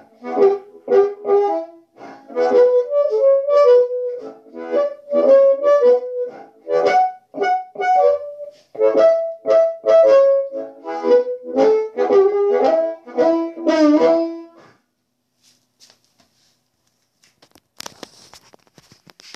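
Blues harmonica played through a Turner dynamic element in an Astatic 200 bullet-mic shell, amplified: choppy rhythmic chords at first, then held and bent notes, stopping about 15 seconds in. Near the end there is a brief rustle of the mic being handled.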